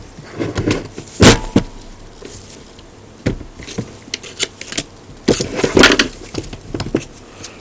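Metal parts and tools knocking and clinking as a Yaesu G-1000 antenna rotator is dismantled with a screwdriver and bar: a sharp knock about a second in, a few scattered clicks, then a cluster of clinks towards the end.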